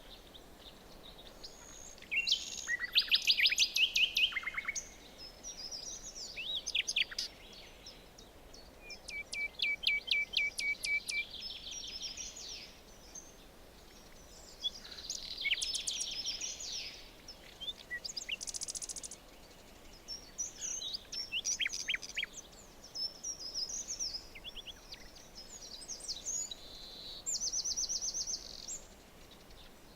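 Several songbirds singing in a forest: short phrases of quick trills and chirps every few seconds, over a faint steady background hiss.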